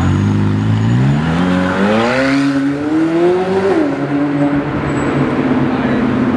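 McLaren Senna's twin-turbo V8 pulling away and accelerating: the engine note rises in pitch for about two and a half seconds, drops sharply at an upshift just before four seconds in, then runs on steadily as the car drives off.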